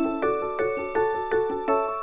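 Background music: a light, cheerful melody on bell-like mallet percussion, notes struck in quick succession.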